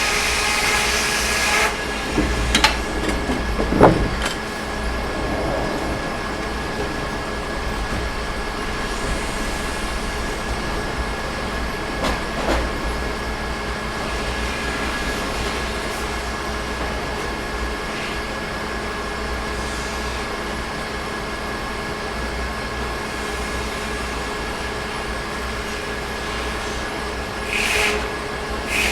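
Sawmill engine running steadily, with a louder hiss for the first second and a half that stops abruptly, and a few sharp knocks and clunks scattered through.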